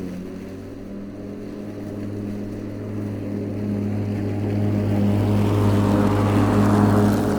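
Riding lawnmower engine running steadily as the mower approaches, growing louder and loudest near the end.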